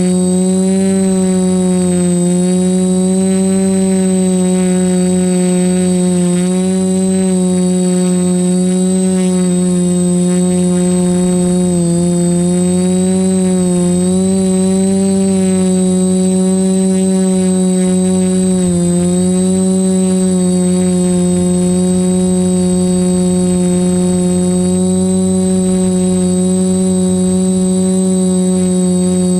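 TBS Discovery quadcopter's electric motors and propellers buzzing steadily, heard from the GoPro mounted on it, the pitch wavering as the throttle changes and dipping briefly twice. A thin steady high whine runs under it.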